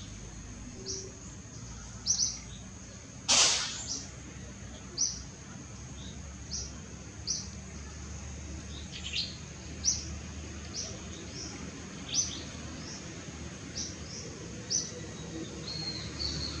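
A bird repeating short, high chirps about once a second, with one short, harsh, noisy burst about three and a half seconds in.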